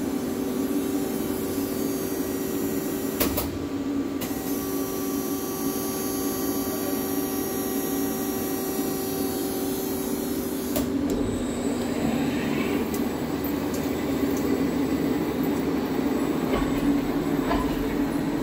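Fryer XL-50 CNC longbed lathe running under power: a steady mechanical hum. There are two sharp clicks about three and four seconds in and another near eleven seconds, where some higher tones drop out.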